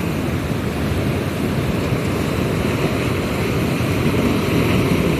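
Steady rushing noise of sea surf, with no single wave breaking out above the rest.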